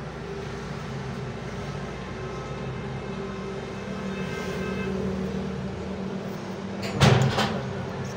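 A steady background hum, with a brief, loud clatter about seven seconds in, most likely the kitchen knife knocking and scraping on the marble slab where the besan dough strips are being cut.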